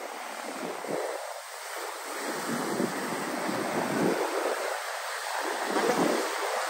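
Ocean surf breaking and foamy backwash washing up a sand beach, the noise swelling and easing as the waves come in.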